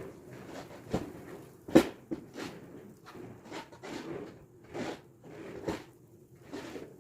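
Irregular knocks, clicks and rustling, with one sharp knock about two seconds in.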